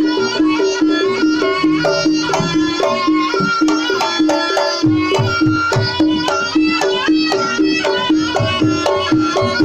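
Live Javanese jaranan accompaniment: a shrill reed melody, typical of the slompret shawm, over a fast repeating pattern of struck gamelan gong-chimes and kendang drum strokes. The low drum strokes grow heavier about halfway through.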